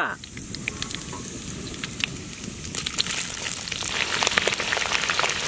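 Green chillies frying in hot oil in an iron kadai: a steady, rain-like sizzle dotted with small pops and crackles, growing louder about three seconds in.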